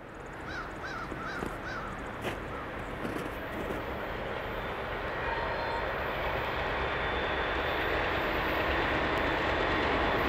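Approaching diesel freight train, a steady rumble growing louder. In the first two seconds a bird gives four short calls in quick succession.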